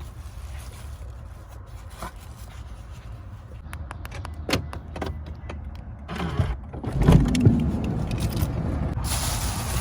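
Handling sounds around a parked car: scattered clicks and knocks over a low steady rumble, a louder clatter of knocks about seven seconds in, then a steady hiss from about nine seconds in.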